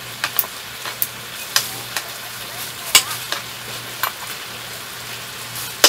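Meat sizzling in a hot pan: a steady hiss with fat spitting in sharp, irregular pops.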